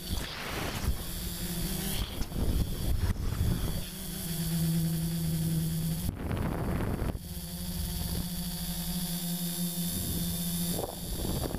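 A multirotor drone's electric motors and propellers humming steadily, heard from the camera on board, with a slight shift in pitch a few seconds in. Rushes of wind noise on the microphone come and go, loudest around two to three seconds in and again about six seconds in.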